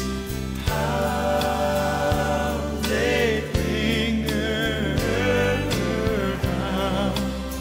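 Music: a slow song with a singing voice held with vibrato, over sustained chords and a light regular beat.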